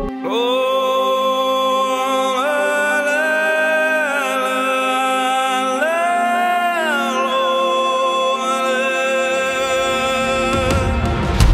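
Slow music with long held notes that glide up and down in pitch over a steady low drone. Near the end it turns into a busier passage with sharp percussive hits.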